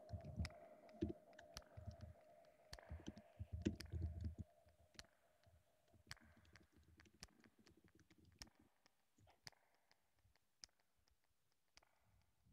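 Near silence broken by faint scattered clicks, typical of a computer keyboard and mouse being worked, with soft low knocks in the first four seconds. A faint steady tone stops about six seconds in.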